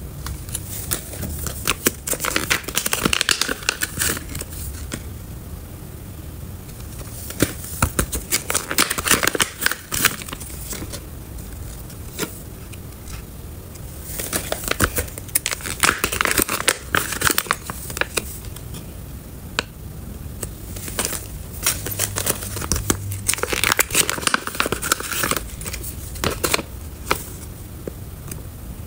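Silver foil zip-lock pouches crinkling as they are handled and turned over, in several bursts of dense crackling rustle with quieter gaps between.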